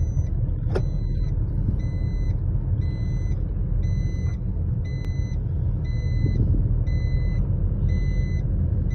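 Steady road and engine rumble inside a moving car's cabin, with the car's electronic warning chime beeping about once a second throughout.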